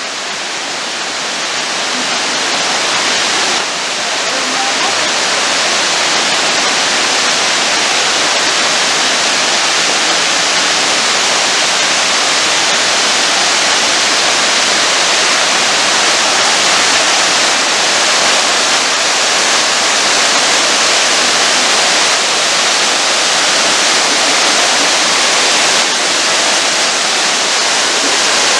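Small waterfall, a steady rush of falling, splashing water, growing louder over the first few seconds and then holding even.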